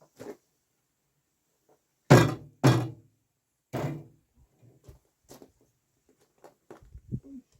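Three heavy thuds in quick succession, followed by softer scattered knocks and taps.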